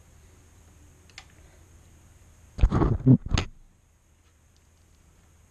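A short cluster of sharp clattering knocks and clicks, lasting about a second and starting about two and a half seconds in, from hand tools and the metal footpeg mount being worked on the motorcycle, with a faint single click before it.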